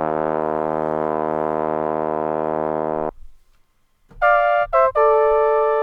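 Sampled notes from a brass-and-sax SoundFont played on a keyboard. A long, low, reedy note is held about three seconds and cut off. After a second of silence come two short higher notes, then a held higher note.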